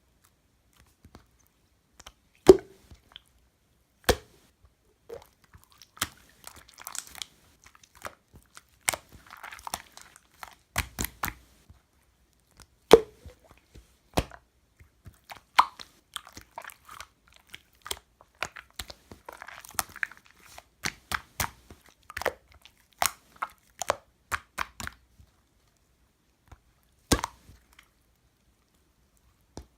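Slime being squished and poked by hand: irregular sharp pops and clicks of trapped air, the loudest about 2.5 and 13 seconds in, with stretches of faster small crackling pops and soft squishing between.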